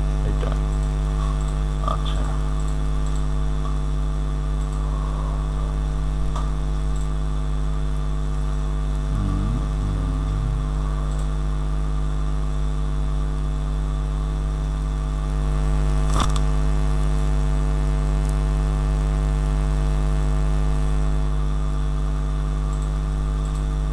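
Steady electrical mains hum with many overtones, picked up in the recording's microphone signal, with a single sharp click about 16 seconds in.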